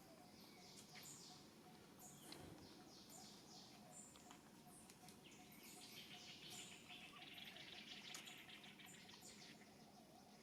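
Faint outdoor forest ambience: small birds chirping in short repeated series, joined about halfway through by a rapid insect trill like crickets or cicadas.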